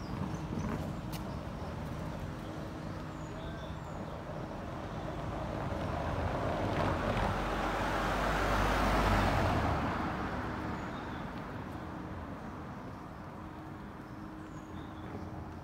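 A Mercedes-Benz SUV driving past, its tyre and engine noise swelling to a peak a little past halfway and then fading away.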